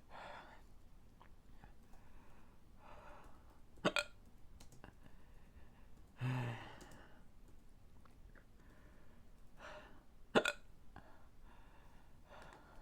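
A man hiccuping, two sharp hiccups about six seconds apart, with a short pained groan and breathing between them. The hiccups have been brought on by eating a Carolina Reaper pepper.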